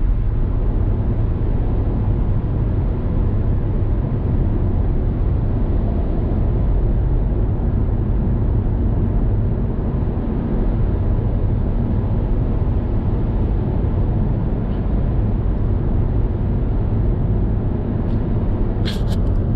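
Steady low road and engine noise of a car driving along, with a brief sharp click near the end.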